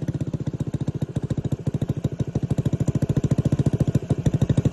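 Stripped-down Honda Ruckus scooter's single-cylinder engine running at idle with a fast, even putter, growing slightly louder toward the end.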